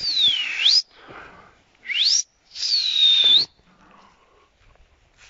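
A man's loud whistling: three high, breathy whistles that swoop up and down in pitch, the last a longer falling one. This is a pigeon fancier whistling, along with flag-waving, to chase a flock of young pigeons back up and keep them flying instead of landing.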